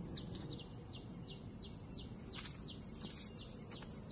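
Insects droning steadily at a high pitch, with a rapid, even run of short falling chirps, about four a second.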